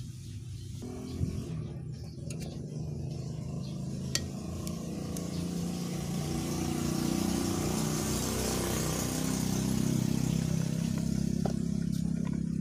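A motor vehicle engine running steadily, growing louder through the middle and easing off near the end. Near the start come a couple of light metal clicks as screws are driven into a horn speaker's driver housing.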